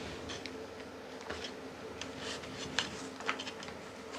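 Hands rubbing and pressing a silicone mat over dough in a metal pizza pan: soft scraping with a few light ticks, over a faint steady hum.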